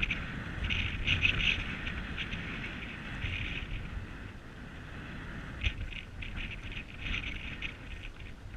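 Water splashing and dripping from paddling on a lake, in irregular clusters of small splashes, over a low rumble of wind on the microphone.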